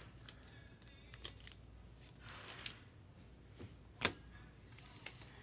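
Trading cards and plastic card holders being handled: a few light clicks, a brief sliding rustle about two and a half seconds in, and a sharper click about four seconds in.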